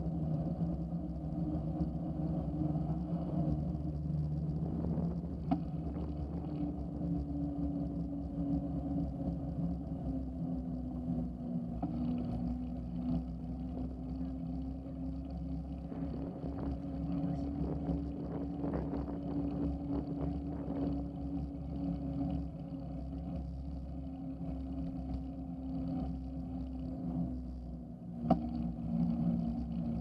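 Mountain bike rolling along a paved trail, heard through a handlebar-mounted camera: a steady low tyre hum whose pitch drifts slowly with riding speed, over a rumble of road vibration. A sharp knock sounds about five seconds in and another near the end.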